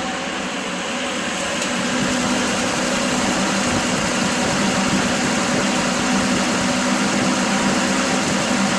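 Engine of an old 6-volt vehicle idling steadily with its headlights switched on, loading the generator. The sound is a steady hum that gets a little louder about two seconds in.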